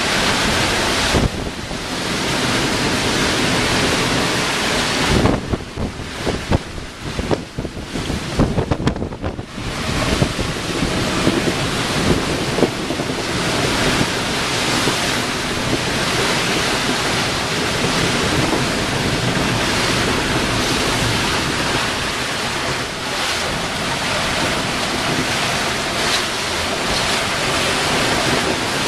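Gale wind buffeting the microphone over breaking seas and water rushing past a sailboat's hull, in uneven gusts for the first ten seconds or so, then steady.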